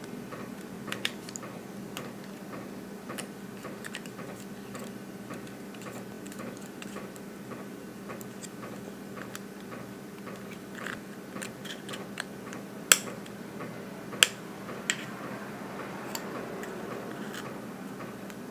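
Small tool clicks and light scraping on the inside of an opened iPhone 6 while the battery connector is being worked loose, with three sharper clicks about two-thirds of the way through, over a faint steady hum.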